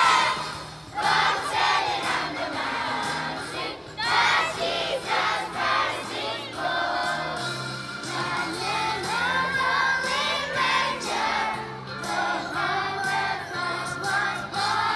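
A Christmas song: many voices singing together over instrumental backing with a stepping bass line.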